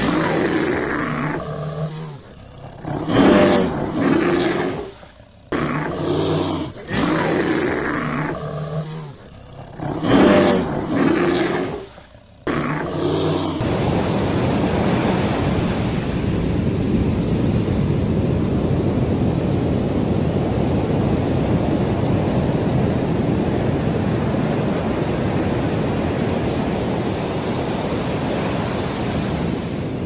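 A bear giving a series of long, deep calls with short gaps between them, the loudest about 3 s and 10 s in. About 14 s in the calls stop and a steady, even rushing noise takes over.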